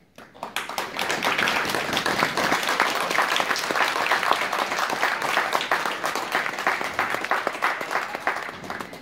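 Audience applauding: dense hand clapping that starts just after the beginning and dies away near the end.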